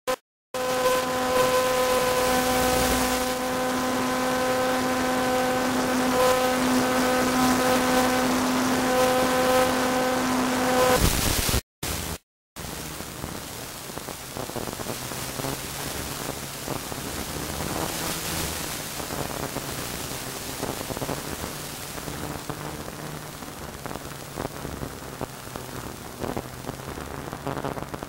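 Aircraft engine drone with wind noise: a steady pitched hum over a hiss. About twelve seconds in the sound cuts out briefly twice, then the drone goes on quieter and lower in pitch.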